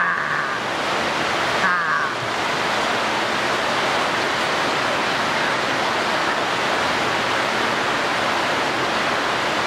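Steady loud rushing noise, with two short voice sounds, one at the start and one about two seconds in.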